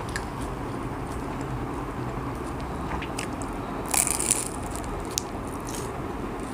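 Biting into a crispy fried banana spring roll (popia pisang): a short crunchy crackle about four seconds in, with a few smaller crackles before and after it.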